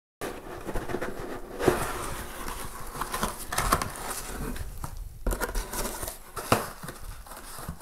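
Plastic packing wrap crinkling and rustling as it is lifted out of a cardboard box, with cardboard lid handling and a few sharp knocks.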